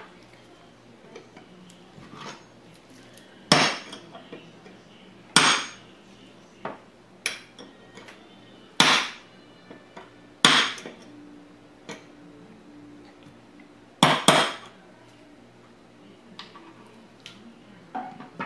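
Steel rifle parts and a steel punch clinking and knocking against each other and the wooden bench: about eight sharp metallic knocks at uneven spacing, with lighter clicks in between.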